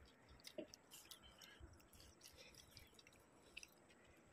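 Faint crunching and small clicks of people eating puffed rice (muri) and chicken by hand from disposable plates, close to near silence.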